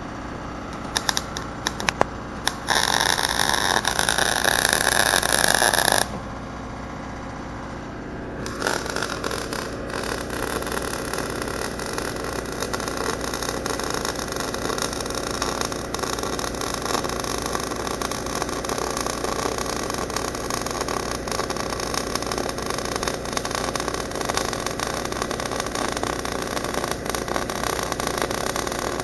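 MIG welding arc crackling and sizzling in short-circuit transfer, over the steady running of an engine-drive welder. A loud dense burst of arc runs for about three seconds near the start and stops, then after a short pause a long continuous bead of crackling runs on to the end.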